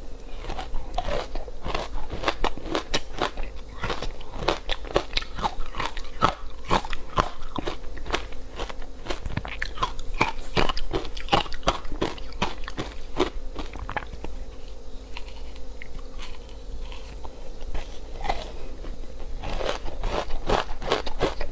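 Frozen matcha-powder ice being bitten and chewed close to the microphone: a dense run of crisp crunches that thins out for a few seconds past the middle and picks up again near the end. A faint steady hum lies underneath.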